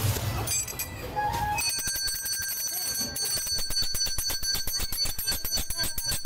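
An ice cream vendor's bell ringing rapidly and without a break, starting about a second and a half in.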